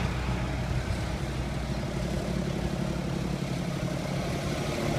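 Tractor engine running steadily at a low, even beat.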